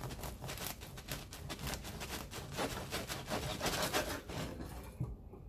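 Bread knife sawing back and forth through the hard, crisp crust of a freshly baked no-knead artisan loaf, a dense crunching crackle that stops about four and a half seconds in.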